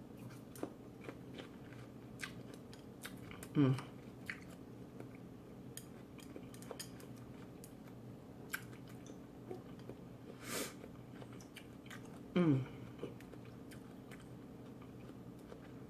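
A person chewing food close to the microphone, with small wet mouth clicks scattered through. Twice, about three and a half seconds in and again about twelve and a half seconds in, there is a short vocal hum, and a brief breathy noise comes about ten and a half seconds in.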